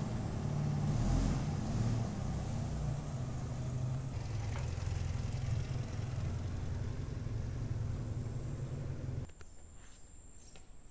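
A loud, uneven low rumble that cuts off suddenly about nine seconds in. After it, only faint clicks and a thin, steady high whine remain.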